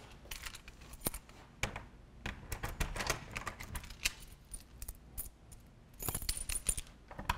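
Keys jangling and scattered light metallic clicks as a front door is unlocked and opened, with a louder brief noise about six seconds in.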